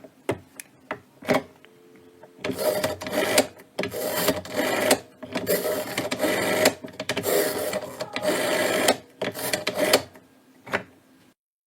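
Keypad buttons being pressed: a few separate clicks, then several stretches of dense rapid clattering, each one to two seconds long, and a few last clicks before the sound stops.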